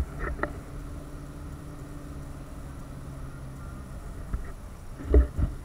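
Steady engine and road hum inside a moving car's cabin. There are a few short thumps at the start and a louder double thump about five seconds in.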